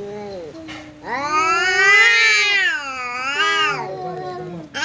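Two domestic cats yowling at each other in a territorial standoff, the warning cries that come before a fight. Long, wavering yowls that rise and fall in pitch: a short one at the start, a loud drawn-out one from about a second in lasting nearly three seconds, and a second, lower yowl overlapping it near the end.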